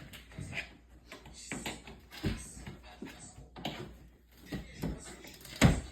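Unboxing handling noises: the packaging of a large studio monitor being rustled, pulled and knocked, with scattered clicks and bumps and one loud thump near the end.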